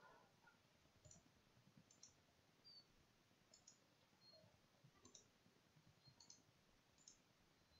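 Near silence broken by about six faint computer mouse clicks, spaced a second or so apart.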